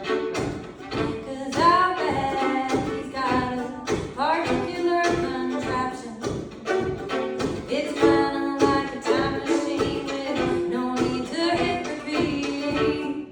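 Live acoustic song: a voice singing with sliding notes over string-instrument accompaniment played in a steady, evenly spaced rhythm.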